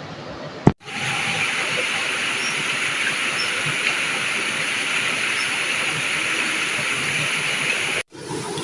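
Steady rush of flowing river water that cuts in sharply about a second in and cuts off sharply near the end, over a quieter background of the same kind.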